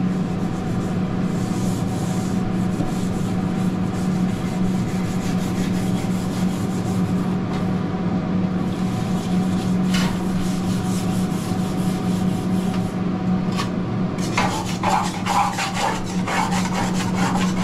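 Hand scrubbing of a flat-top griddle's steel plate and edges to loosen baked-on residue: a continuous rough rubbing and rasping, stroke after stroke, over a steady low hum.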